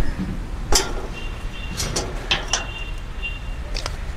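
Sharp metallic clicks and rattles, about five over a few seconds, from the steel-mesh dog cage's small feeding hatch and its latch being worked.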